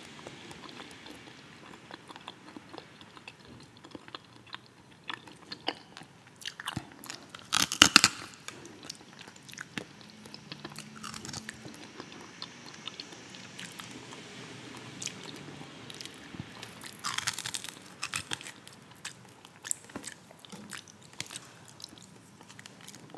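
Close-miked eating sounds of fried croaker picked apart by hand: steady chewing and small mouth clicks, with two louder crunching bites, about eight seconds in and again about seventeen seconds in.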